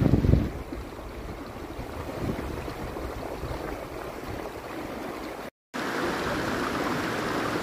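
Shallow creek water running over rocks, a steady rush. There is a short low thump at the very start, and the sound briefly cuts out about five and a half seconds in.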